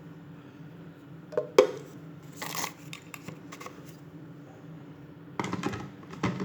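Kitchen handling sounds with the blender switched off: a sharp knock about a second and a half in, a short scrape a second later, then a burst of clatter near the end, over a faint steady hum.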